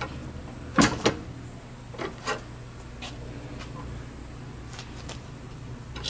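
A few short clicks and knocks as a push mower's engine stop cable and bail lever are worked by hand at the handle, the loudest about a second in. The cable is hard to pull, which is taken as a sign that it may be partly seized down near the engine.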